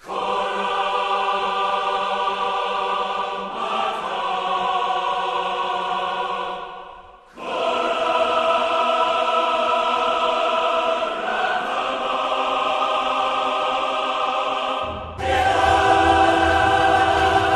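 Background music of long held chords. It fades out about seven seconds in and comes back on a new chord, and a deep bass joins about fifteen seconds in.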